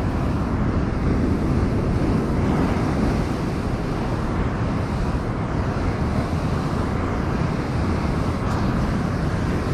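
Big waves breaking against a rocky shore as a steady rush of noise, with wind noise on the microphone.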